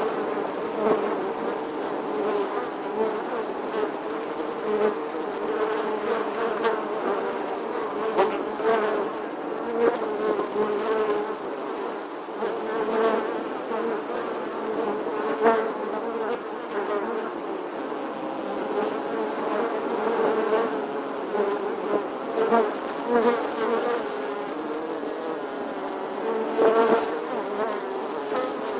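A bee buzzing continuously, its pitch wavering a little and its loudness swelling and fading many times as it moves about close to the microphone.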